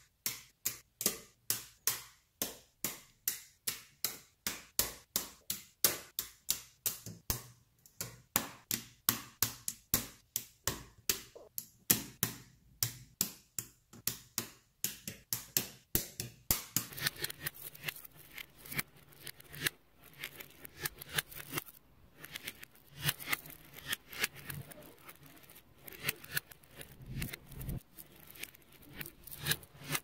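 Magnetic rods and steel balls clicking as they snap together. For the first half there is a steady run of sharp clicks, about two or three a second; about halfway through it turns into quicker, irregular clicking and rattling as the structure is handled.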